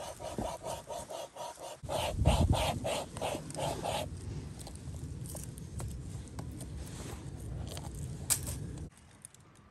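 Flexible wire saw strung in a handmade bow-saw frame rasping back and forth through a green oak sapling in quick, rhythmic strokes. The strokes stop about four seconds in, giving way to softer rubbing and handling noise, with a sharp click near the end.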